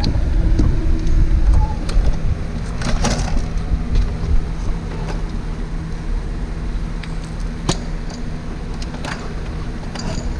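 A steady low mechanical hum runs throughout, with a few short sharp clicks and knocks.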